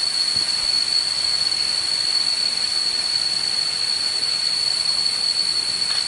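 Tropical forest ambience: an even hiss of running water under a constant high-pitched insect drone.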